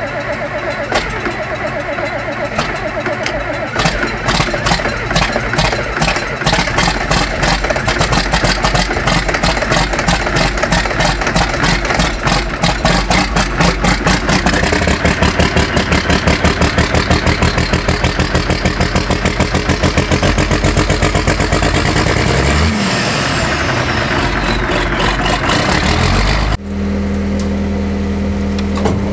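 Diesel tractor engine just after a cold start, running rough with an even pulsing beat as it settles. Near the end it cuts abruptly to another engine idling with a steady low hum.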